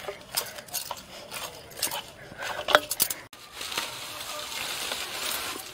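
Bangles clinking and knocking against a steel bowl as hands knead dough in it, a quick irregular run of clicks and clinks. After about three seconds this gives way to a steady rustling hiss.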